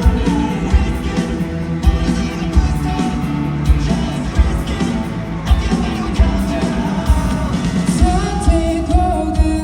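Live band rock song with a man singing over a heavy drum beat and amplified instruments.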